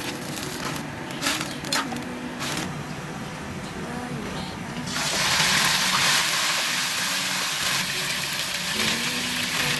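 Kitchen cooking sounds: a few light clatters, then about halfway a steady rushing hiss sets in and stays, over a song's melody.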